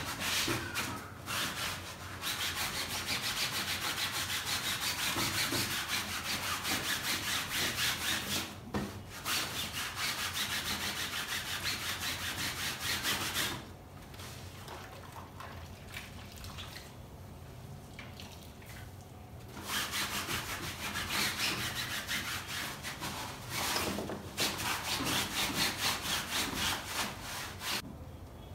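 Wet cloth scrubbing the frame of a baby swing bassinet in quick back-and-forth strokes. The scrubbing drops away for several seconds about halfway through, then starts again.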